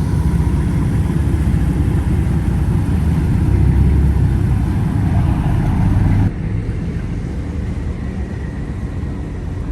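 A vehicle engine running with a heavy low rumble and hiss. About six seconds in the sound drops abruptly and carries on quieter.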